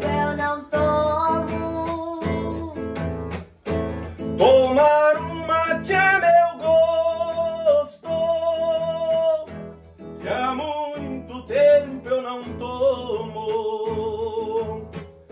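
Acoustic guitar strummed as the accompaniment to a sung Brazilian moda, with the voice holding long notes over steady strumming and breaking off briefly twice between phrases.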